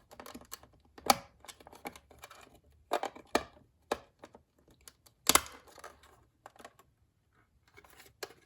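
Plastic clicks, taps and knocks from handling a cordless phone handset and its parts, irregular, with the loudest knocks about a second in and about five seconds in.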